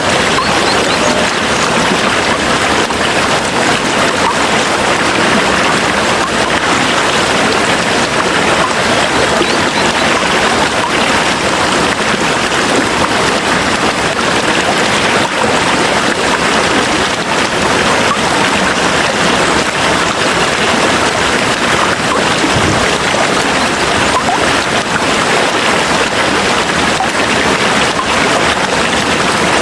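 Steady heavy rain falling, a dense even hiss with fine crackling drops.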